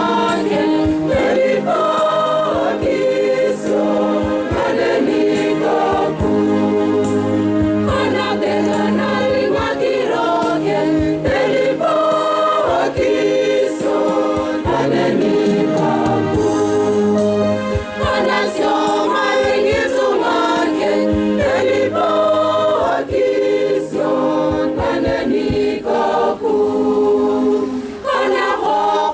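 Catholic church choir singing a hymn, many voices together in harmony with long held notes.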